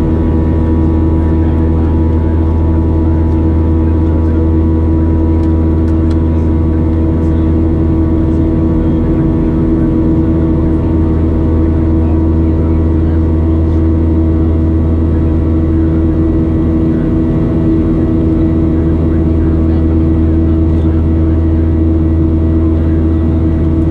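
Cabin noise of a Boeing 737-700 climbing, heard inside the cabin: the CFM56-7B turbofans' steady drone, a deep rumble with several steady humming tones over it, holding constant thrust.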